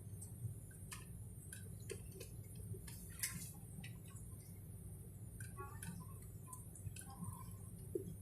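Faint steady low drone of an airliner cabin, with scattered light ticks and clicks over it, the sharpest about three seconds in and again near the end.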